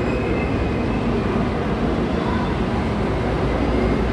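Southern Shorthaul Railroad P-class diesel locomotive running as it moves slowly into the platform, a steady low engine drone.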